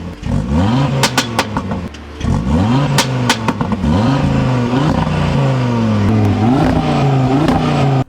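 Audi RS3's turbocharged five-cylinder engine revved in a series of quick blips, with sharp pops and crackles from the exhaust as the revs drop. It then holds a raised, slightly wavering rev before the sound cuts off suddenly.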